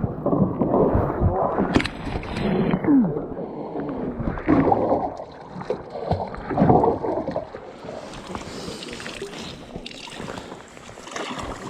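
Canoe being handled in shallow river water: irregular splashing, sloshing and knocks against the hull, followed by a steadier rush of moving river water over the last few seconds.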